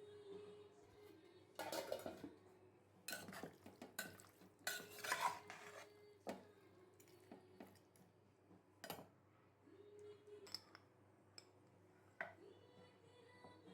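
A spoon clinking and scraping against a dish in irregular bursts, busiest in the first half, then only a few single clinks.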